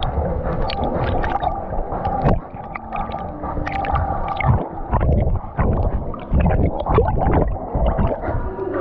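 Water gurgling and splashing as a dog swims in a pool, heard through a wet waterproof camera, with many sharp splash clicks over a low rumble.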